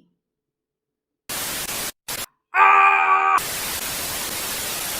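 Static hiss cutting in and out in short bursts, with a brief buzzing, distorted tone in the middle, then steady static. It sounds like an edited glitch or TV-static transition effect.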